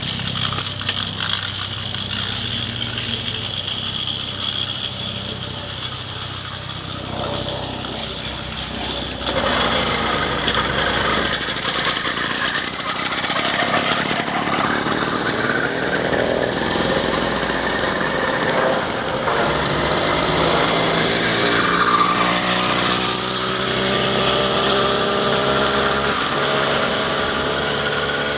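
Black Wildcat 66cc two-stroke bicycle engine kit running, its idle not yet fully adjusted. It gets louder about ten seconds in, and over the last few seconds the pitch climbs as it revs up.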